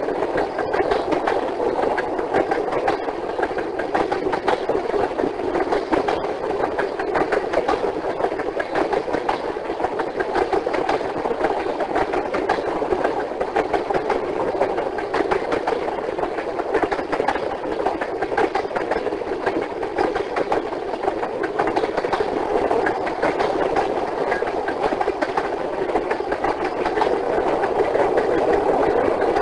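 Train running: a steady, even noise with fine, rapid clatter, a little louder near the end.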